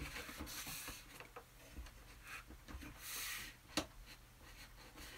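Faint rustling of a sheet of painted paper being shifted on an easel, with a louder brushing sweep about three seconds in and a sharp click from the easel's clip just after.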